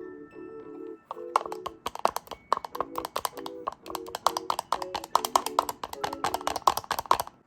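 Background music with a repeating melody; from about a second in, a rapid run of light taps or clicks plays along with it.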